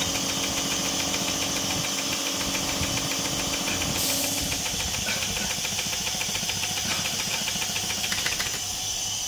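Ardmel ultrasonic sewing machine running as it seals a fabric bag seam: a steady hum and high hiss with a rapid, even ticking that stops near the end.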